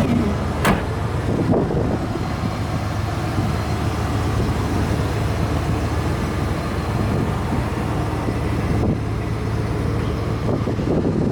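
A 1993 Ford Lightning pickup's 5.8-litre V8 running steadily, with a low even hum and wind noise on the microphone. A single sharp click comes a little under a second in.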